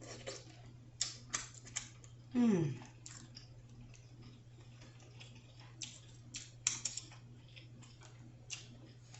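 Scattered sharp clicks and cracks of a cooked lobster tail shell being pried and broken apart by hand, coming in small clusters.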